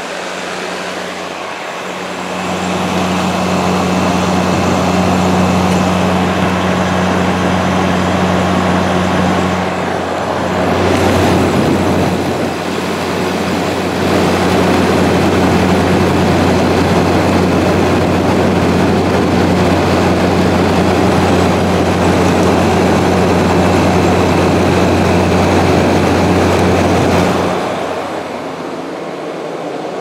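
2013 Frigidaire 12,000 BTU window air conditioner running: a steady low hum with a rush of air from its fan. It grows louder about two seconds in and falls back near the end.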